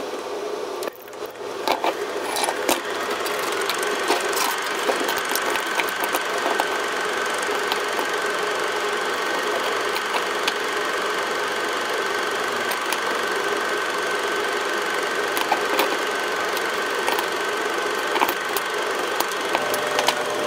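Steady whirring clatter of an old film projector with scattered crackles and clicks, and a faint steady high tone from about four seconds in.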